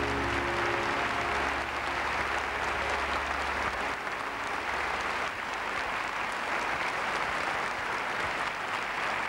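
Large theatre audience applauding steadily. Under it a held low keyboard chord dies away, ending about four seconds in.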